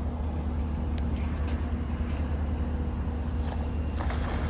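A cast net is thrown and splashes down onto shallow water near the end. Under it runs a steady low rumble.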